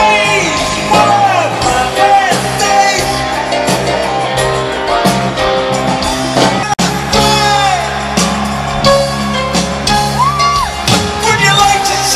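Live rock band playing loudly with a lead vocalist singing over guitar and bass, heard through a stadium PA.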